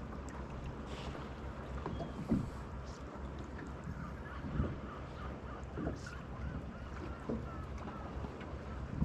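Water lapping against the hull of a small drifting motorboat: soft knocks every second or two over a steady low hum.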